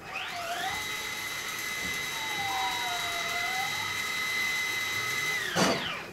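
Motorised sliding door opening at the press of its push button. The drive motor's whine rises as it starts, holds steady while the door travels, then falls away with a sharp knock near the end as the door reaches its open stop.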